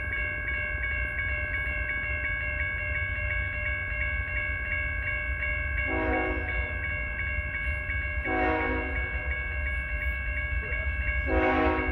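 Railroad grade-crossing bells ringing with fast, regular strikes while an approaching BNSF locomotive sounds its air horn in three short blasts, the last the loudest.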